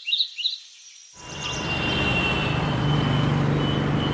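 A bird chirps a few quick calls, then about a second in the steady rumble of busy city road traffic fades up and holds, with a faint thin high tone running through it.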